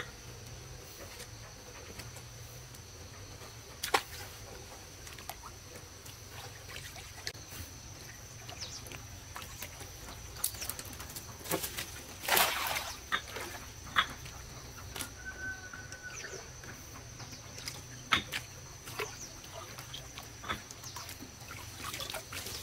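Water splashing and sloshing in short, irregular bursts as a person wades through knee-deep water and pulls leafy branches out of it, the loudest splash about halfway through. Underneath runs a steady high-pitched insect drone.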